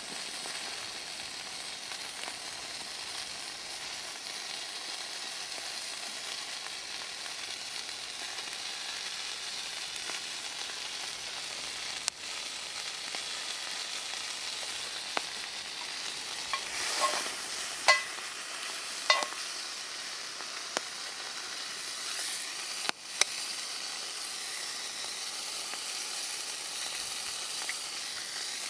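A breakfast fry sizzling steadily in a frying pan over a wood fire. A few short clicks and clinks come through partway in.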